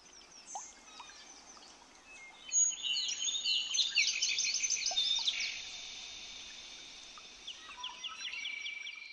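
Birdsong: birds singing in quick repeated chirps and trills, busiest and loudest from about two and a half to five and a half seconds in, over a faint outdoor hiss.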